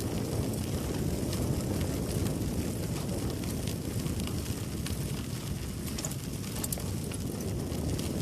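Wind buffeting the microphone over the low rumble of bicycle tyres rolling along a trail, with faint scattered ticks.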